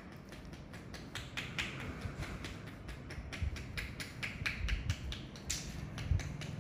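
Light, irregular clicks and taps, about three a second, from a metal acne extraction tool being worked over the skin, over a low steady room rumble.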